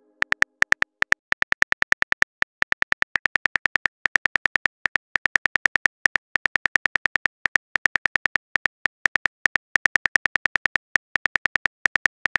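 Smartphone on-screen keyboard clicks, one short tick per typed letter, coming several a second in runs with brief pauses as a text message is typed.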